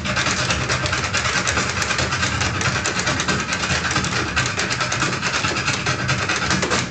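Two Irish dancers' hard shoes beating out a rapid, unbroken stream of taps and stamps on a wooden floor, danced a cappella with no music. The taps stop abruptly at the very end.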